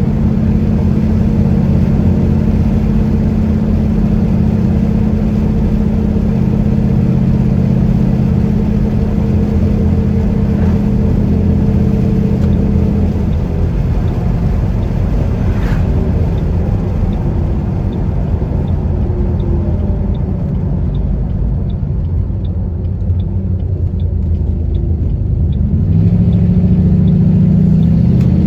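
Ford Mustang GT's V8 running through its new exhaust on the move, a steady low drone that eases off about halfway, with a light regular ticking at a little under two a second. Near the end the engine note rises again as it accelerates.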